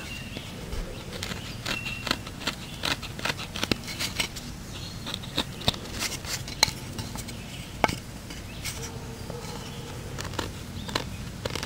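Small knife blade scraping and shaving the wood of a bow-drill hearth board around its charred depression, in glancing strokes that scrape more than cut: a string of short, irregular scratchy clicks.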